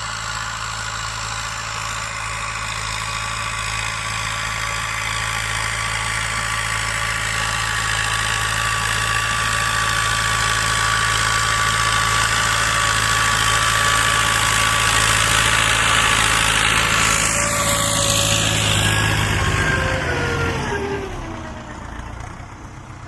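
YuMZ-8040 tractor's diesel engine running steadily under ploughing load. Near the end its pitch falls and it drops to quieter, slower running as the throttle comes off.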